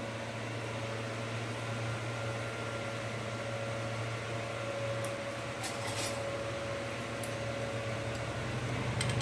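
Steady low hum with a faint high whine, from a stove kept low under a pan of simmering water. A few light clicks come about five and six seconds in, and again near the end.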